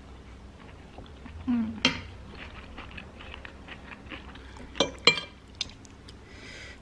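Metal spoon and fork clinking and scraping on a ceramic plate, a sharp clink about two seconds in and a quick cluster of clinks near five seconds, with quiet chewing between.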